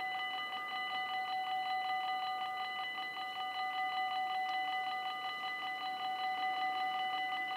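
Dutch level-crossing warning bell ringing in a fast, even run of metallic strikes, each a cluster of steady ringing tones. It signals that the barriers are down and a train is approaching.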